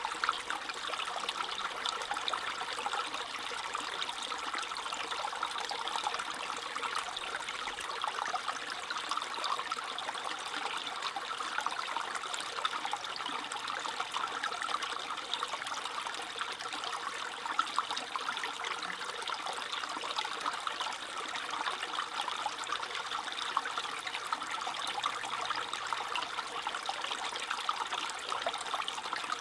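Small stream trickling and babbling steadily over stones, a continuous, even flow with fine bubbling detail.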